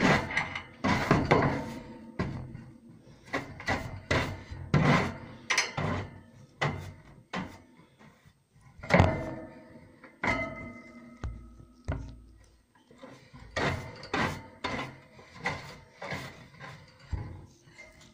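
Hand brush sweeping wood shavings across a plastic cage base, in irregular strokes with knocks of the brush against the tray.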